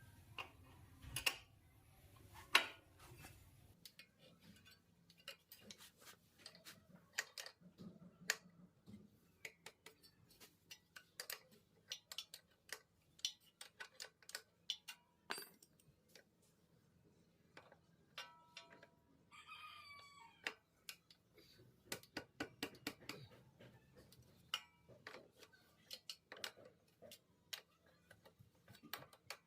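Many light, irregular metallic clicks and clinks from work on a bike chain, with a rooster crowing once about two-thirds of the way in.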